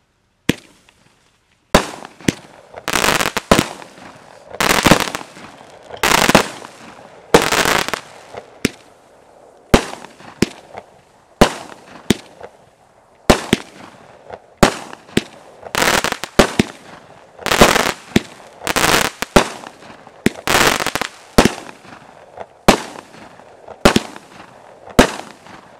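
Skysong 'Metal Slug' 16-shot, 200 gram consumer firework cake firing its shots in quick succession. There is a sharp report about every second, and several are followed by a second or so of crackling from the chrysanthemum crackle and strobe effects.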